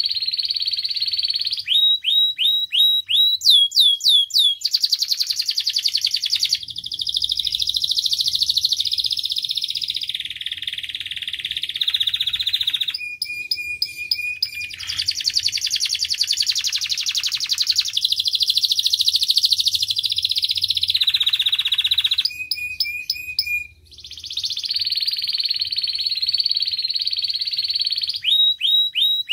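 Canary song: long, rapid rolling trills alternating with short runs of fast repeated notes that sweep downward, and a couple of brief clear whistled trills, sung almost without a break.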